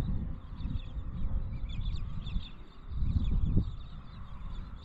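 Wind buffeting the microphone in gusts, strongest about three seconds in, with birds chirping repeatedly in the background.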